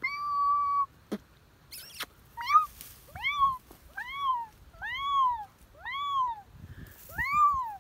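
An animal giving a run of short, high mewing calls that rise and fall in pitch, about one a second.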